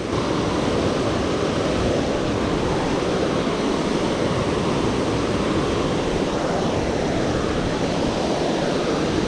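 Water pouring over a dam as a man-made waterfall, a steady, even rush that does not change.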